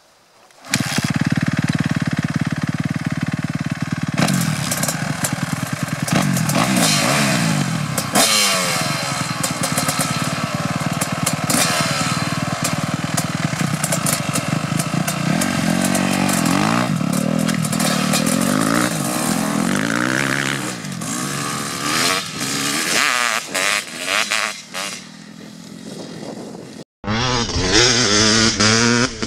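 Kawasaki KX250 two-stroke and KX250F four-stroke dirt bike engines running and being revved while the bikes stand side by side, the pitch rising and falling again and again. Near the end the sound cuts to a dirt bike being ridden at speed.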